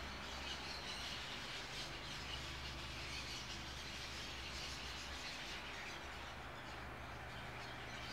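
Quiet room tone during a pause in speech: a steady low electrical hum and faint hiss, with faint scattered high chirps in the background.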